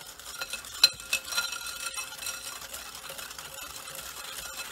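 Wire whisk beating eggs and sugar in a glass mixing bowl: its wires click and scrape against the glass continuously, with one sharper clink just under a second in.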